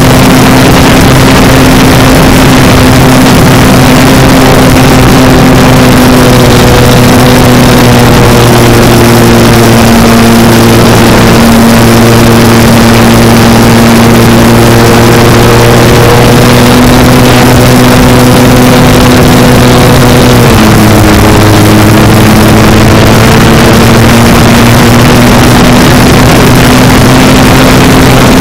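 Motor and propeller of a GWS Focke-Wulf 190 RC model plane, recorded very loud from a camera on board. The drone holds steady and shifts pitch with throttle, dropping noticeably about two-thirds of the way through, then slowly rising again.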